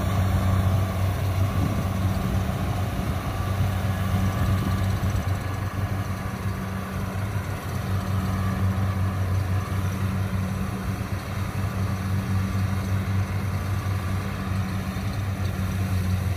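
Kubota DC-70 combine harvester's diesel engine running steadily under load as the machine cuts and threshes lodged rice, a constant low hum.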